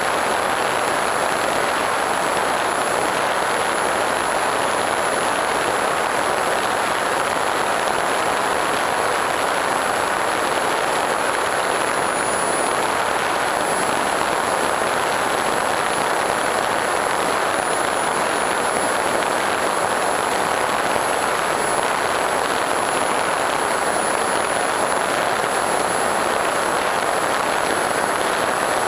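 Steady rushing of airflow and the electric motor and propeller of an FPV Raptor 1600 mm model plane in flight, picked up by its onboard camera, with a constant high-pitched whine over it.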